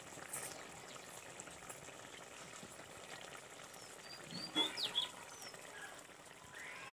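Tengra fish curry boiling in an open kadhai, a steady bubbling simmer. About four and a half seconds in, a bird chirps a few times, short high calls that are the loudest thing here.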